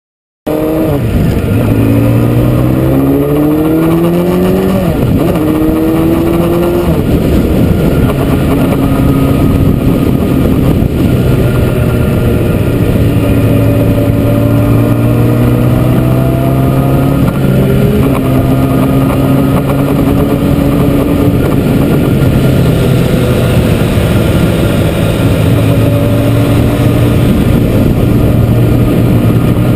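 A Honda CBR600F4i's inline-four engine under way, its pitch climbing through a couple of gear changes in the first few seconds and then running fairly steadily at cruising speed. A constant rush of wind and road noise runs underneath.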